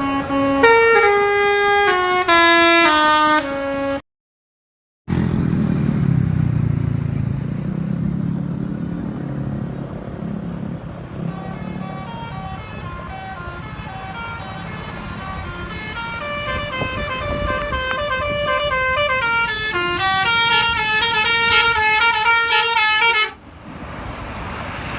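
Bus 'basuri' telolet horns playing melodies of stepped, held notes, over a bus engine running. A short tune at the start breaks off into a second of silence, then the engine is heard alone before a longer run of horn tunes builds louder and cuts off suddenly near the end.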